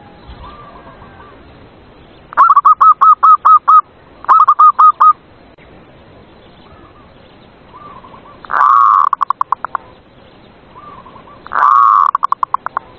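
Zebra doves cooing. Two runs of rapid staccato coos come a little after two and four seconds in. Twice more, near nine and twelve seconds, a loud held note runs into a quick series of short coos, with fainter coos in between.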